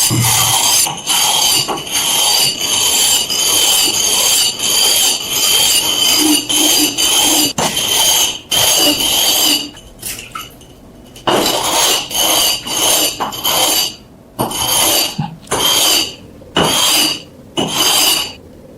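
A hand tool drawn back and forth across metal in quick repeated strokes, each with a high metallic ring. The strokes stop about ten seconds in, then resume as slower, separate strokes.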